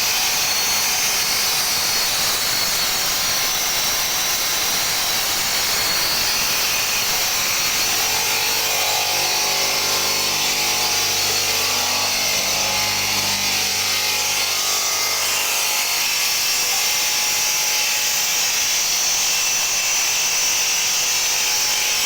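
Stone-cutting machine running steadily, its blade grinding through stone with a constant hiss. From about 8 to 16 seconds in, a steady motor hum with a fixed pitch sounds underneath.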